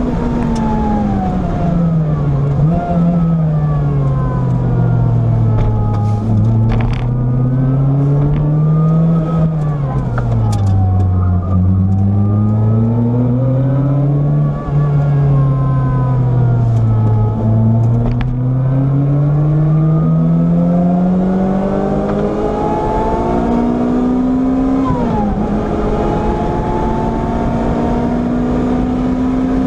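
Car engine heard from inside the car at speed. It falls in pitch as the car brakes and shifts down for corners, then climbs again under acceleration. Near the end there is a long pull with a quick upshift about 25 seconds in, over steady wind and tyre noise.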